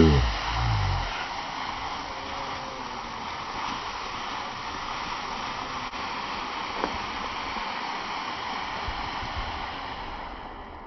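A loud low boom from a firework, then a ground firework spraying with a steady hiss that slowly dies away near the end, with a few faint crackles.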